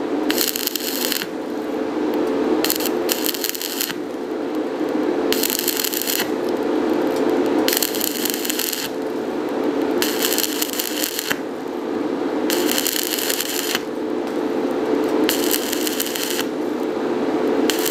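Stick-welding arc from a 3 mm rutile electrode at 80 A crackling and sizzling in bursts of about a second, about eight times, with a steady hum underneath. Each burst is cut off sharply when the electrode is snapped away and the arc goes out at once, then restruck: the interrupted-arc technique.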